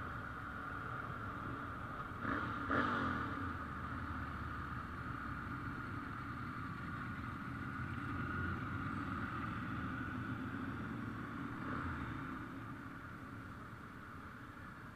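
Motorcycle engines running steadily, with a louder burst as one revs or passes about two to three seconds in and a smaller one near twelve seconds, then the sound eases off toward the end.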